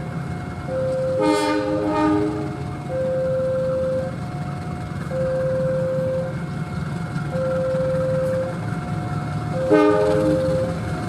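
Indonesian GE CC206 diesel-electric locomotive approaching with its engine running, sounding its horn twice: once about a second in, again near the end. Throughout, a two-tone alarm repeats steadily, its two notes alternating about once a second.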